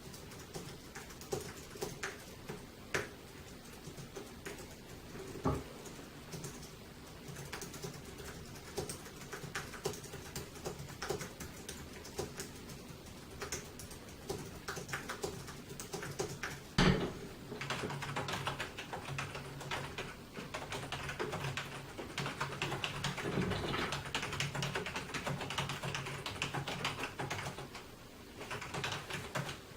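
Typing on a computer keyboard: scattered keystrokes at first, a single sharp knock about 17 s in, then faster, denser typing with a brief pause near the end.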